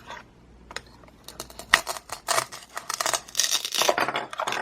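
Velcro pieces of toy food being cut apart with a plastic toy knife on a cutting board: a crackly velcro rip with sharp clicks and taps, mostly in the second half.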